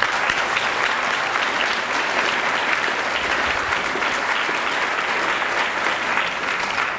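Audience applauding steadily, thinning a little near the end.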